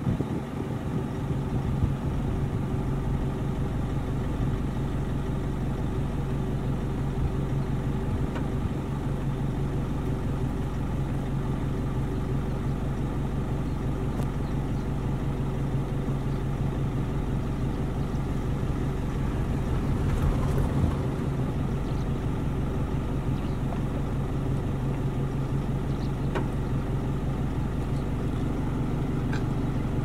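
Safari vehicle's engine idling steadily, with a brief swell about two-thirds of the way through.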